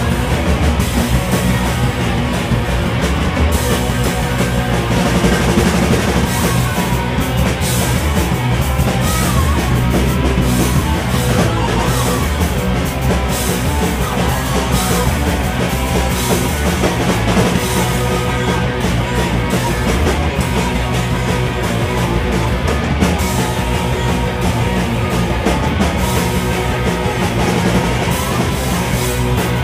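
Live rock band playing loud and without a break, a drum kit with crashing cymbals driving under dense amplified instruments.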